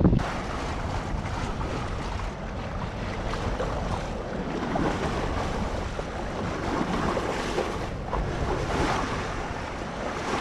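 Sea water rushing and splashing along the bow of a moving sailboat, with wind on the microphone.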